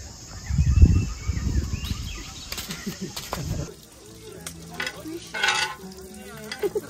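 A low rumble for the first few seconds, then thin crepe batter sizzling softly on a hot round griddle as it is spread with a scraper, with light scraping and ticking.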